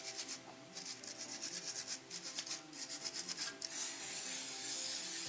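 Ratchet wrench clicking rapidly and rasping as a suspension fastener is worked, with faint music underneath.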